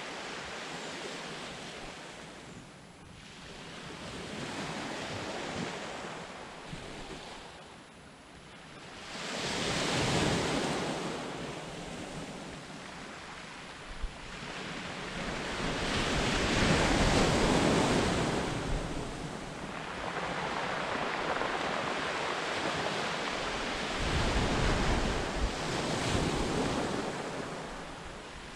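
Sea waves breaking and washing up the beach, the surf swelling and fading every few seconds, with wind buffeting the microphone.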